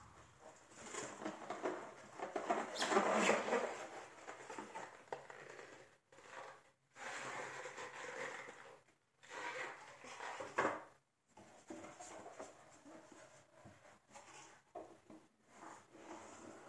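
Hands handling a graphics card's cardboard box and packaging: irregular rustling, scraping and light knocks, loudest about three seconds in, with a few brief silent gaps.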